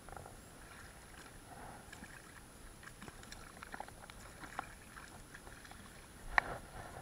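Small waves lapping, with scattered light splashes and ticks as a hooked garfish thrashes at the surface. One louder sharp hit comes about six seconds in.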